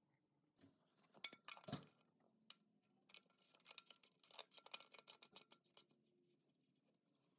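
Near silence with a few faint, scattered clicks and clinks, like small parts being handled, in two small clusters, one in the first two seconds and another in the middle.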